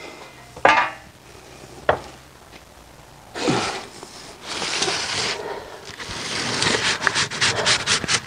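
Metal pizza peel scraping and sliding over the stone floor of a wood-fired oven as a sheet of loaves is pushed in: a steady scraping sound from about three and a half seconds in, turning into a quick run of clicks and small knocks near the end.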